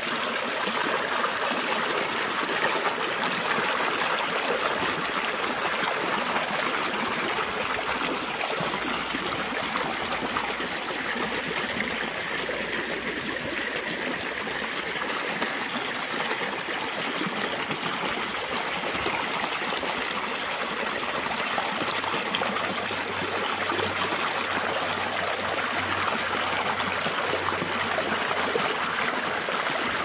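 Shallow water running and splashing over boulders in a small cascade, a steady close-up wash of water noise.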